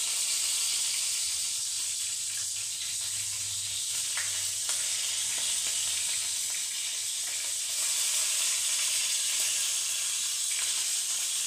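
Beef smash burger patties sizzling steadily in a frying pan.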